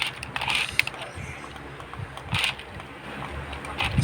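Toys being handled and knocked together: scattered clicks, knocks and short scraping sounds.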